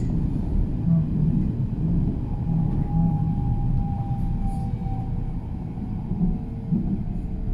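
Running noise of a passenger train, heard from inside the carriage: a steady low rumble. From about two seconds in, a faint whine sounds over it and slowly drops in pitch.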